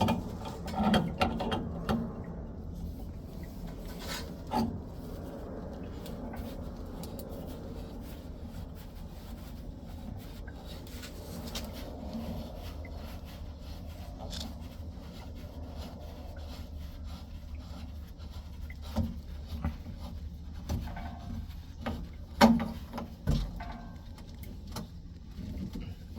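Hand tools working on a water heater's pipe fittings: scattered sharp metal knocks and clicks with some scraping and rubbing, over a steady low hum.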